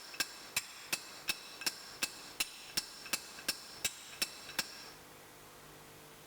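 Hand hammer striking a hot 12 mm steel round bar on an anvil, about three ringing blows a second, upsetting the bar to thicken it into a boss. The blows stop about five seconds in, leaving a faint steady hum.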